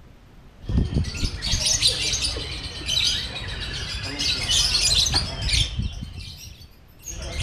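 Lovebird singing a long, fast, unbroken chattering trill of high chirps, the extended song that bird keepers call 'konslet'. It starts about a second in, dies away about a second before the end, and starts again right at the end.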